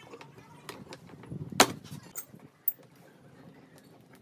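Workpieces and tools being handled at a workbench: scattered small clicks and knocks, with one louder knock about one and a half seconds in and a sharp brief tap about a second later.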